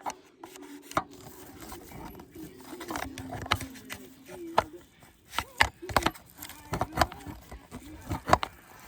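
Irregular sharp clicks and knocks of hard plastic prop parts being handled and pushed together while skeleton-cat leg pieces are fitted onto their snap-lock joints.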